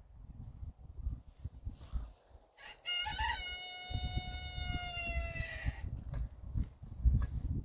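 A rooster crowing once, a single call of about three seconds starting about three seconds in, held on one pitch that sags slightly toward the end.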